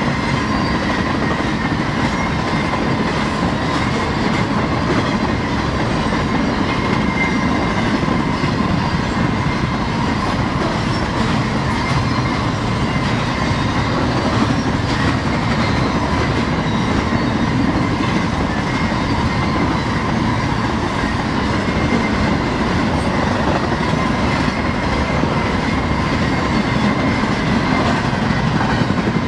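Freight cars of a BNSF freight train rolling past on the rails, a loud, steady clatter of wheels with a high steady squealing tone running under it.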